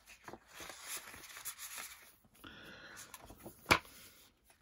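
Pages and inserts of a memorabilia book being handled: soft paper rustling and sliding, with a single sharp click or tap near the end.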